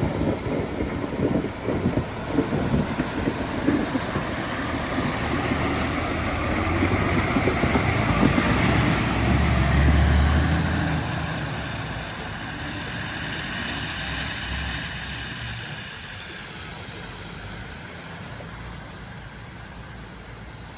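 Ford truck driving through floodwater: the engine hums under load over rushing, splashing water, growing to its loudest about ten seconds in and then fading away.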